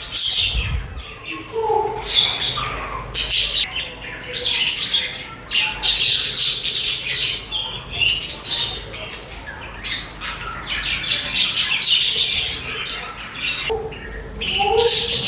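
A flock of pet budgerigars chirping, warbling and chattering, with quick high-pitched notes tumbling over one another nearly without pause.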